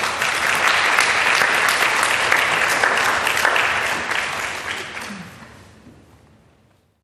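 Audience applauding, many hands clapping at once; it grows loud in the first second, holds, then dies away over the last three seconds.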